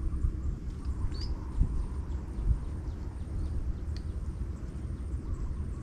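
Uneven low rumble of wind buffeting the microphone, with a couple of faint bird chirps, one about a second in and one near four seconds.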